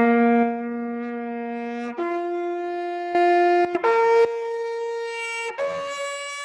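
Trumpet played with no valves pressed, the notes changed by the lips alone: a held low note, then three steps up the open harmonic series, each note held for about two seconds before jumping to the next higher one.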